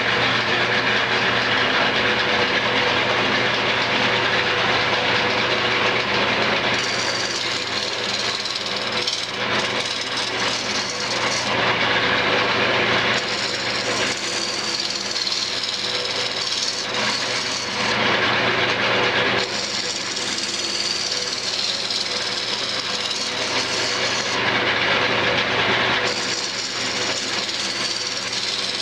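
Wood lathe running at about 700 RPM with a steady motor hum, while a roughing gouge cuts along a spinning cherry-and-maple spindle blank, truing out its flat spots. The shaving hiss comes in passes of a few seconds each, with short breaks between them.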